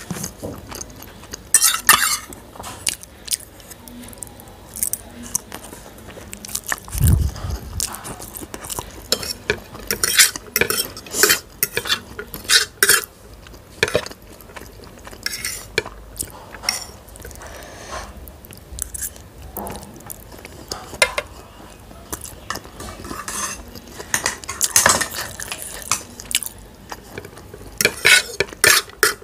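Close-miked clinks and scrapes on ceramic plates as masala Maggi noodles are gathered up by hand, in scattered clusters of short, sharp knocks. There is one low thump about seven seconds in.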